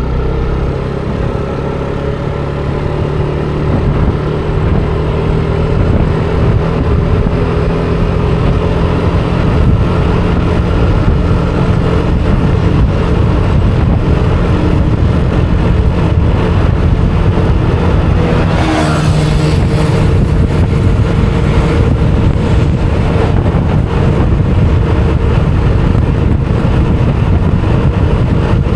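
Motor scooter engine running under gentle, steady acceleration, its note creeping slowly upward as road speed builds from a slow roll to about 57 km/h, over a constant rumble. A short falling whine passes about two-thirds of the way through.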